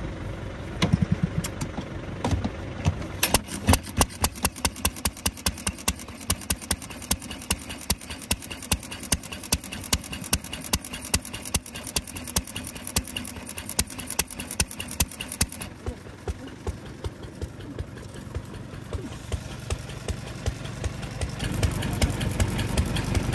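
Old Japanese single-cylinder stationary engine (a Meiki hatsudoki) catching after its flywheel is turned, then running with an even beat of sharp exhaust pops, about three a second. About two-thirds of the way through the pops lose their sharp edge and go on weaker, and near the end a louder steady engine rumble comes in.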